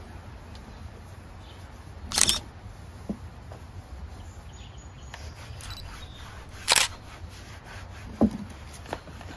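Three sharp camera-shutter clicks, about two seconds in, near seven seconds and just after eight seconds, over a steady low outdoor rumble.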